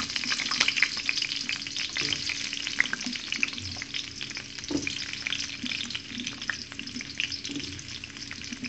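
Pieces of green capsicum (bell pepper) sizzling in hot oil in a wok, a dense hiss scattered with small pops and crackles that eases off gradually after they have gone in. Loudest near the start, with the peppers being lightly fried.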